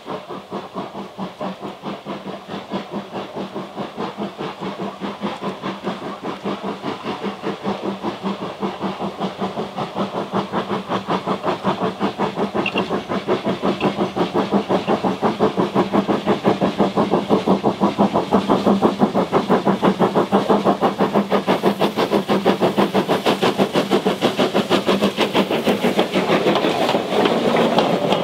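LMS Jubilee class three-cylinder 4-6-0 steam locomotive working a train, its exhaust beating in a steady, even rhythm that grows louder as it approaches. Near the end the coaches run past close by with rail noise.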